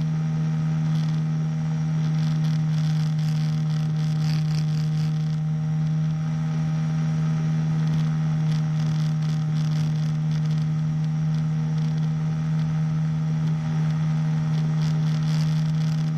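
Small engine of a powered hang-glider harness running steadily at one pitch during a climb, with a constant droning note and no change in throttle.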